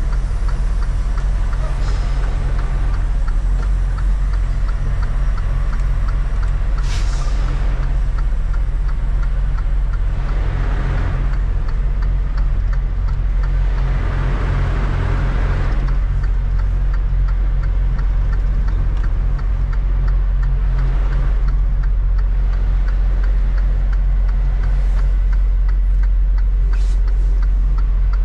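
Semi-truck diesel engine idling steadily, heard from inside the cab. A short sharp hiss comes about seven seconds in, and a few softer swells of noise follow.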